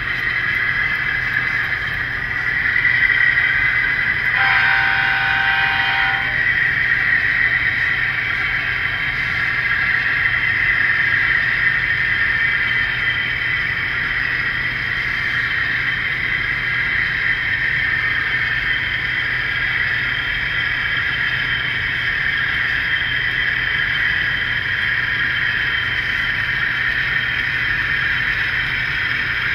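Model diesel locomotives' sound decoders playing a steady engine drone through small onboard speakers, with one horn blast of under two seconds about four and a half seconds in.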